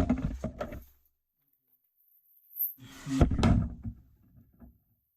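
A short cluster of clunks and rattles of hard objects being handled, with dead silence before and after it.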